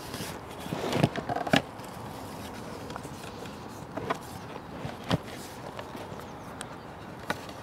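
Knocks and handling noise as a stiffening board is pushed into the stern loops of an inflatable boat's floor: a cluster of sharp knocks in the first second and a half, then a few single knocks later.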